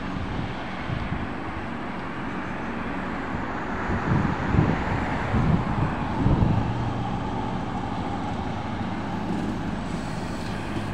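Street traffic noise as an electric bus pulls away, with a few louder low swells from passing vehicles about four to six seconds in.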